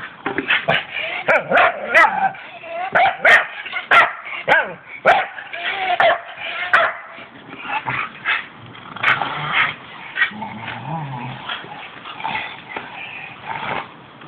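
Two Staffordshire bull terriers yipping, whining and giving short barks in play as they tug at a hanging rubber tyre swing. The sharp sounds come thick and fast in the first half and thin out after that.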